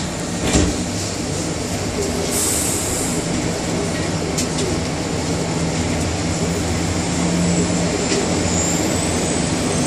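Inside a Bombardier Innovia APM 100 rubber-tyred people-mover car: a steady hum from the car's running equipment. A thump comes about half a second in and a brief high hiss around two and a half seconds in.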